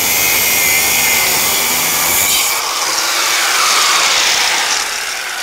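Angle grinder with a cutting disc cutting through the corroded exposed threads of rear suspension bracket bolts, a loud steady grinding whine whose pitch dips a little over halfway through.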